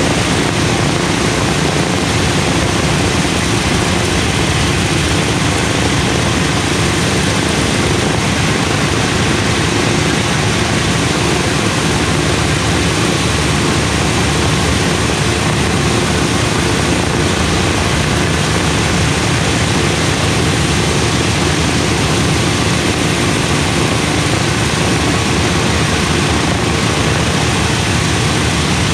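All four Wright R-1820 Cyclone nine-cylinder radial engines of a B-17G bomber idling together with propellers turning, a loud, steady, even drone with no change in pitch.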